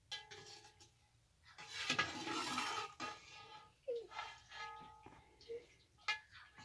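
Metal ladles clinking, knocking and scraping against a large metal cooking pot and a metal serving tray as stew is dished out, the strikes followed by a short metallic ring. A longer, louder scrape comes about two seconds in.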